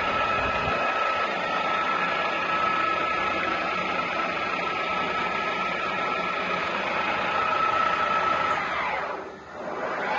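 EX-CELL-O DE 250-1000 centre lathe running, a steady mechanical noise with a high whine. Near the end the whine falls in pitch and the sound dips briefly, then the running returns with the whine slightly lower.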